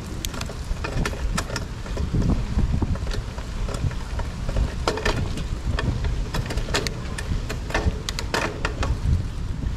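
Wind rumbling on the microphone, with irregular clicks and rattles from a mountain bike being ridden over grass and paving stones.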